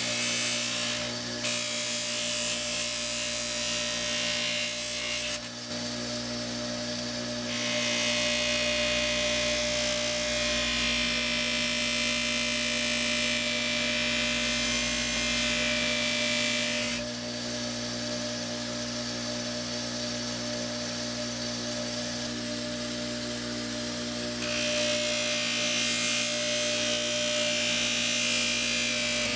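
Bench grinder running with a steady motor hum while an abrasive block, then the steel blade of an old machete, is pressed against the spinning wheel. Each pass gives a hissing grind lasting several seconds, with stretches of plain motor hum between them; the longest pass is in the middle, about ten seconds.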